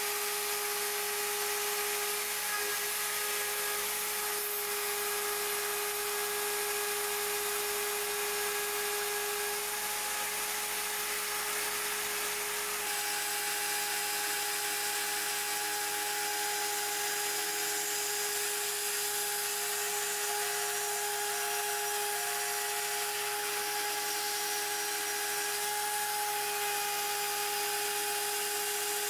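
Mostly Printed CNC router milling aluminium plate with a single-flute carbide end mill: a steady high whine from the spindle turning near 25,000 RPM, over a constant hiss of the cut. The sound shifts slightly about 13 seconds in.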